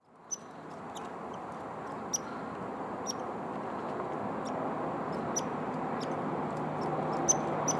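Short, high bird chips, about a dozen scattered irregularly, over a steady rushing background noise that fades in at the start and slowly grows.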